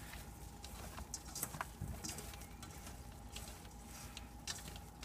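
Hands tossing damp, seasoned oyster mushrooms in a stainless steel colander: quiet, scattered soft clicks and rustles of mushroom against mushroom and metal.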